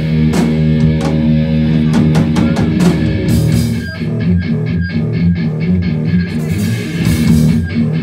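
Rock band playing live: electric guitars and a drum kit, the drums keeping a steady beat with cymbal crashes a few seconds in and again near the end.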